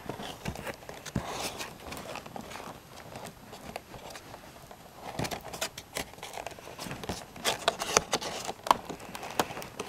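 Fingers and fingernails picking and scratching at a cardboard toy box and its plastic packaging, working at the tape seal: a run of small irregular clicks, scratches and crinkles, getting busier near the end.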